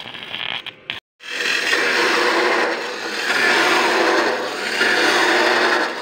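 Abrasive cut-off saw (chop saw) grinding through metal stock. It starts about a second in, after a brief gap, and runs loud and steady, swelling and easing a few times as the disc bites into the cut.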